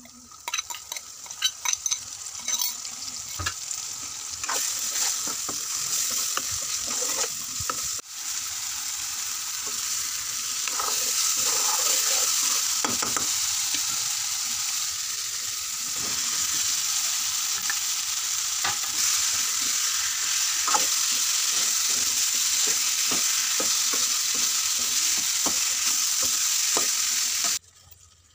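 Masala paste with onions and dried red chillies sizzling in hot oil in a metal kadhai as it is stirred, with frequent short scraping clicks of the spatula against the pan. The sizzle grows over the first ten seconds to a loud, steady hiss and cuts off suddenly near the end.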